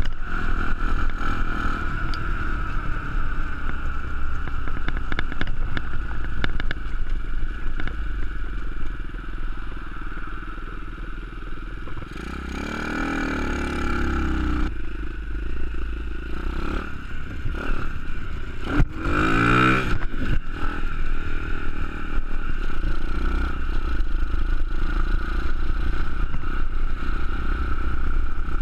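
A 125cc pit bike running under way on the road, heard from the rider's position with wind noise, fitted with a Stomp stealth exhaust whose decibel-killer insert keeps it quiet. Two brief louder surges with gliding pitch come about 12 and 19 seconds in.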